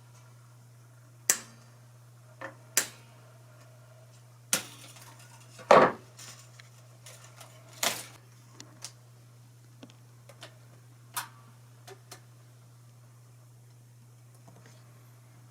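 Sharp metallic clicks and clinks of tools and small guitar hardware being handled and set down while an electric guitar is taken apart, about a dozen separate knocks with the loudest about six seconds in, over a steady low hum.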